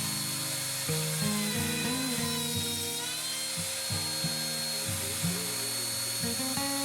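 Background music over the steady high whine of an X-Carve CNC router's spindle cutting plywood; the whine's pitch dips briefly about two seconds in, as the spindle takes load.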